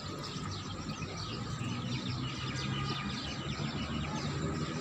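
Many small birds chirping at once, a dense chatter of short, quick chirps that overlap without a break.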